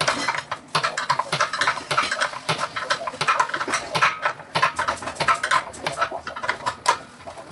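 Rapid, irregular metallic clicking of a small ratchet wrench turning the nuts on an electric water heater's heating-element flange, tightening it back on after the element is replaced.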